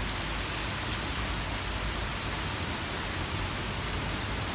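Steady rain falling on hard surfaces during a thunderstorm, an even wash of noise with faint drop ticks and no thunder.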